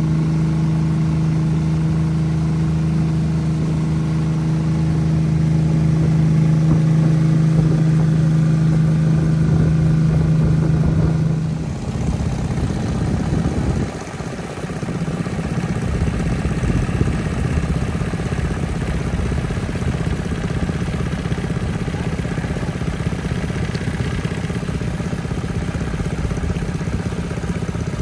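Small engine running steadily with an even hum; about twelve seconds in its note changes and dips briefly, then it runs on at a similar steady pitch.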